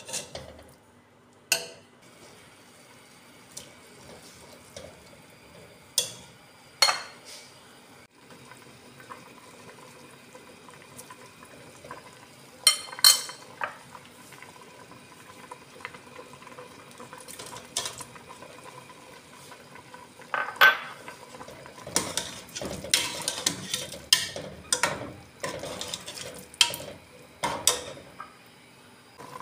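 Metal ladle clinking and scraping against a pressure-cooker pot while stirring chickpeas in liquid. A few sharp clinks are spread out at first, then in the last third comes a busy run of clattering strokes, all over a faint steady hiss.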